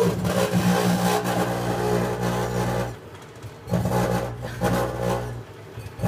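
Plasma from a grape arcing inside a running microwave oven: a loud electrical buzz over a low hum. It cuts out for about a second around the middle, then flares up again and eases off near the end.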